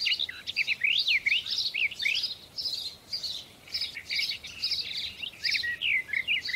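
Songbirds chirping: a rapid, continuous string of quick rising and falling notes that thins out briefly a little past the middle.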